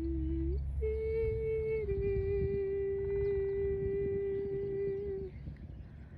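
Long held humming tones with a clear set of overtones: a short note, a brief break, then a higher note held about a second that dips slightly and is held for about three and a half more seconds before it stops, over a low rumble. The source of this hum is unknown.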